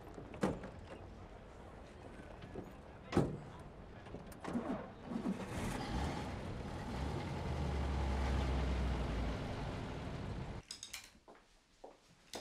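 Two car doors slam, then a car engine runs and the car drives off. The engine sound swells and then cuts off suddenly near the end.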